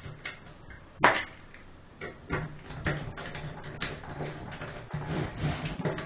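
Screw being driven with a hand screwdriver to fasten a cast aluminium rack segment onto a sliding-gate rack, with metal clicks and knocks as the rack is handled on a wooden table. One sharp knock about a second in, then a steady run of small clicks and scraping.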